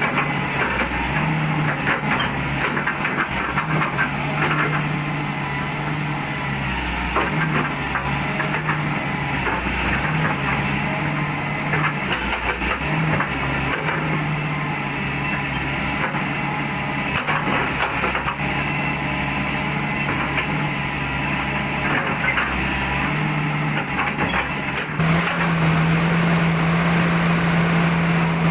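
Volvo EW145B wheeled excavator's diesel engine running while warming up, just restarted after its injectors were refitted and bled. Its note wavers on and off, then holds steady and gets a little louder about 25 seconds in.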